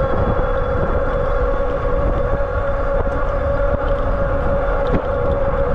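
Aniioki A8 Pro Max e-bike cruising at just over 30 mph on pedal assist 4: a steady high whine from the drive, over a heavy low rumble of wind on the microphone.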